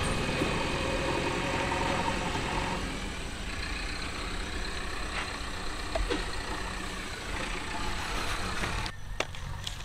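An engine idling steadily, a low rumble with a noisy hiss over it.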